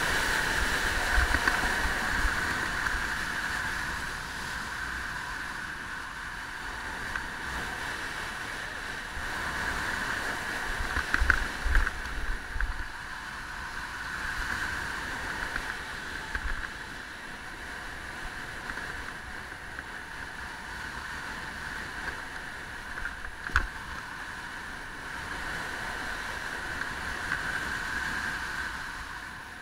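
Wind rushing over an action camera's microphone on a fast snowboard descent: a steady hiss with irregular low buffeting thumps, strongest about eleven seconds in.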